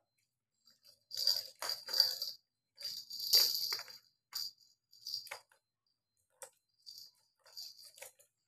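Cat toys rattling and jingling in irregular bursts as kittens bat them: a small bell ball and balls clattering in a plastic ball-track toy. The loudest clatters come about a second in and again around three and a half seconds in.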